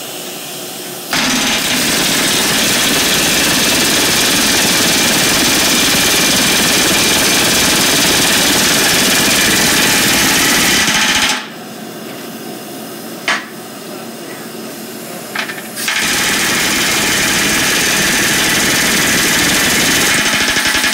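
Pneumatic rivet gun rapidly hammering a red-hot steel rivet to set it, joining a spoke to the hub of a steel tractor wheel. It runs in two long bursts, about ten seconds and then about five, with a short pause between that holds a couple of sharp clicks.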